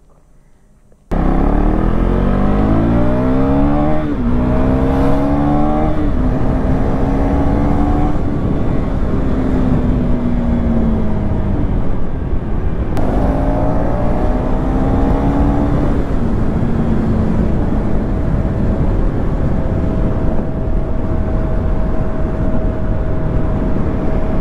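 KTM Duke 390 third-generation single-cylinder engine accelerating hard through the gears: its pitch climbs, drops at each upshift and climbs again, twice over, then settles into a steady cruise. Heavy wind rumble on the microphone runs under it. The sound cuts in suddenly about a second in.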